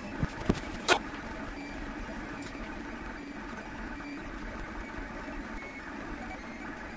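Lulzbot TAZ 6 3D printer running a print: a steady mechanical whir, with three sharp clicks in the first second.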